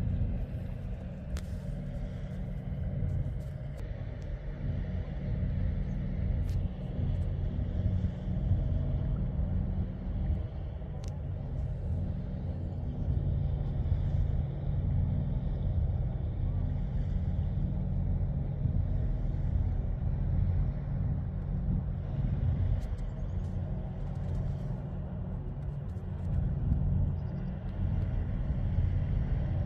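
Steady low rumble with a throbbing pulse, holding level throughout with small swells.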